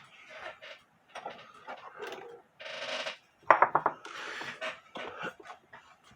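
Handling noises from work on a wall clock: irregular clicks, scrapes and rustling of small parts and wood, with a quick rattle of sharp clicks about three and a half seconds in.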